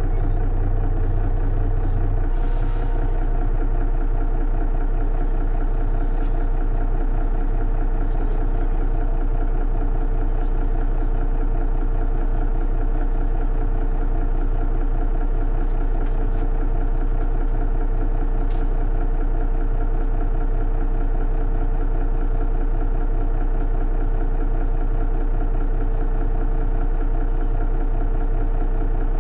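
Mercedes-Benz Citaro Facelift city bus engine running steadily, heard from on board, a loud low hum with no revving. The deepest part of the hum eases slightly about two seconds in.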